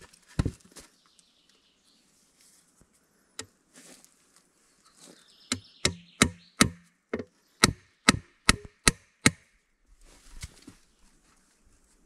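Wood being chopped: a single sharp chop near the start, then a fast run of about ten chops, two to three a second.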